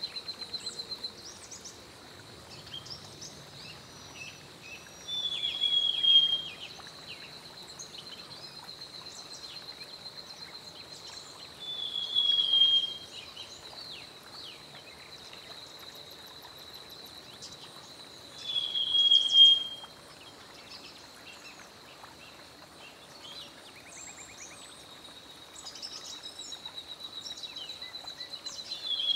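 Black-headed Sibia singing: a loud, slightly falling phrase about a second long, repeated three times roughly seven seconds apart, with a fourth starting at the end. A steady, high pulsing trill runs underneath.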